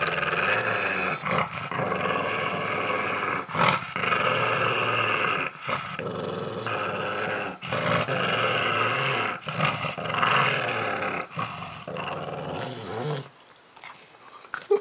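Pug growling over a squash it is eating as a hand pets its head: long continuous growls broken by brief pauses for breath about every two seconds, stopping shortly before the end.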